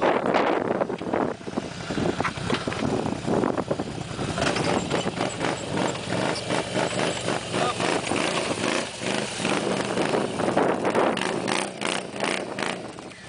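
ATV engine running and revving unevenly under load as the quad climbs through dense brush.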